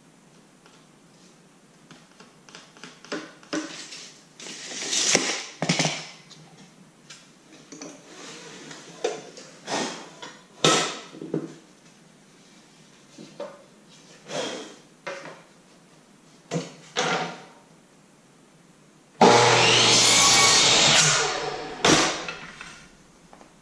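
Wooden trim pieces handled and set down on a DeWalt miter saw's table, a string of light knocks and clatters. About nineteen seconds in, the miter saw starts suddenly and cuts through the trim for about two seconds, then winds down, with one more knock after it.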